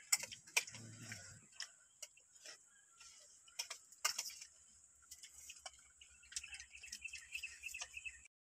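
Faint, irregular clinks and clicks of spoons and forks against ceramic plates as several people eat noodles.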